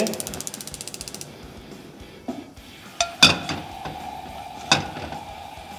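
Gas stove igniter ticking rapidly for about a second. Then a frying pan is set down on the burner grate with a clank about three seconds in, followed by a second knock and a faint steady hum.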